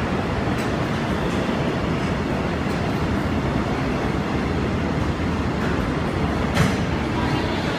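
Freight train hauled by an EF81 electric locomotive rolling along as it pulls away, a steady rumble of wheels on rail with a few sharp clicks, the loudest near the end.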